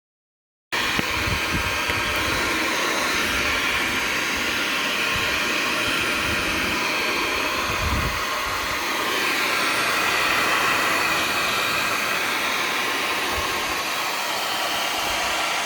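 Steady rushing noise of a hot-air blower running continuously. It cuts in abruptly just after the start and cuts off abruptly near the end.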